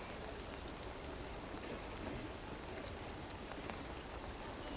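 Steady outdoor wash of water noise, like rain falling or water running on a wet trail, with a few faint ticks.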